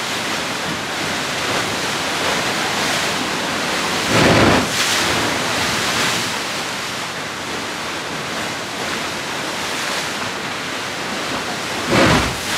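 Sea waves surging into a narrow rocky gully below the cliff path, a steady rushing wash of surf. Twice, about four seconds in and again near the end, a wave hits the rocks with a thump and a splash.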